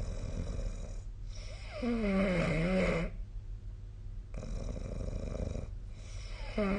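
A sleeping person snoring in a regular rhythm. There is one pitched snore with a wavering pitch, and a second one begins near the end. Each is followed by an airy, unpitched breath out.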